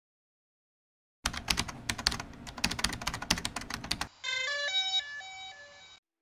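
Keyboard-typing sound effect: a rapid run of key clicks for about three seconds. It is followed by a short electronic jingle of a few quick stepped notes.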